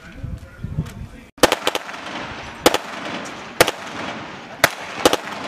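Assault rifles firing blank cartridges: a quick cluster of about four sharp reports, then single shots roughly once a second and a close pair near the end, each with a short echo off the buildings.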